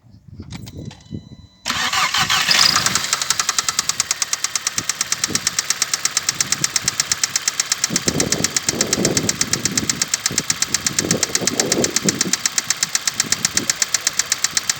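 2008 VW Golf Mk5 GTI's 2.0-litre turbocharged four-cylinder engine starts about two seconds in and then idles with a fast, even ticking of about six or seven a second. This ticking is the weird engine sound that the owner is asking about.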